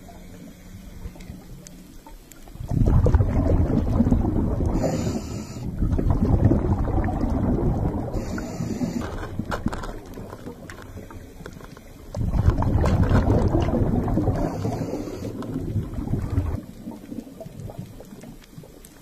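Underwater recording with scuba exhaust bubbles: several loud, low, rumbling bursts of bubbling, each a few seconds long, over a quieter watery hiss.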